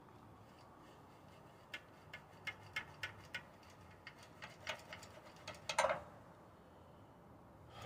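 A dozen or so light clicks and ticks, the loudest near the end, as a hand works the carburetor controls of a stalled Honda GX160 engine; the engine is not running.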